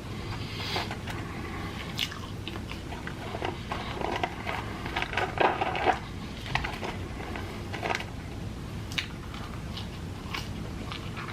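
A person biting and chewing crunchy fried fast food with the mouth close to the microphone: irregular crunches and wet mouth sounds, busiest and loudest about halfway through.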